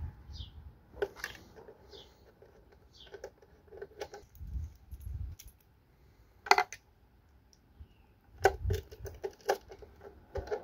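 Small clicks and taps of a screwdriver and cable ends being worked into the screw terminals of an aluminium-cased alternator and solar charger, with dull handling thumps. One sharp click comes a little past halfway, and a run of clicks follows near the end.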